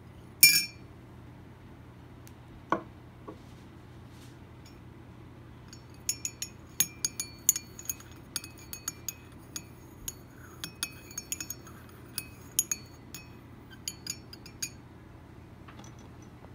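A ceramic lid clinks twice as it is lifted off a ceramic mug and set down. Then a spoon clinks over and over against the inside of the mug as the tea is stirred, a few clinks a second for about nine seconds.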